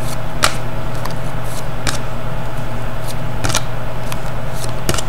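Hockey trading cards being flicked and slid through by hand, giving short sharp card snaps about every second and a half, over a steady background hum.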